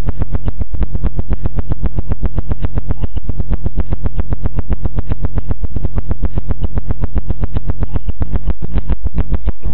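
Very loud bass-heavy music with a deep synthesizer bass line, heavily distorted and overdriven in the recording.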